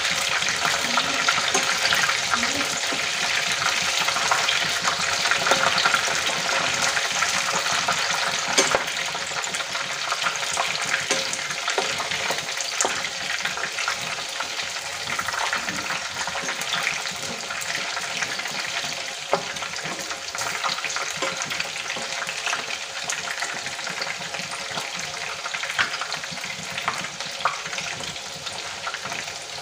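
Battered snack pieces deep-frying in hot oil in a kadai, crackling steadily, with now and then the clink and scrape of a metal slotted spoon stirring them. The frying eases a little about halfway through as the pieces cook toward crisp.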